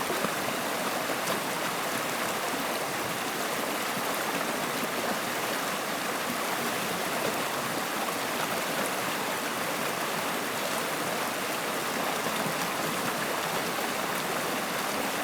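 Stream water flowing steadily, an even rushing sound without breaks.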